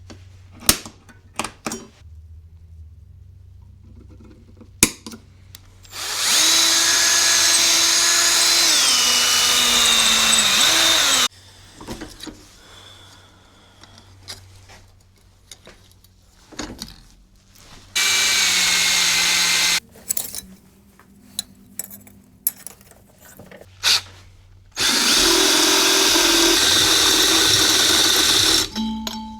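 Electric drill running in three bursts, the first about five seconds long, then a short one and a four-second one, drilling holes; in the first run its pitch sags as the bit bites. Clicks and knocks from handling in between.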